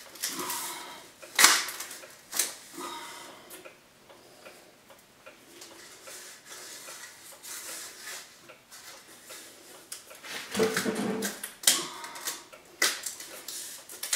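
Sheet-metal stove pipe trim ring and adapter being handled and fitted into the pipe opening: irregular metal clicks, taps and scrapes, the loudest knock about a second and a half in and a busier run of clatter around eleven seconds.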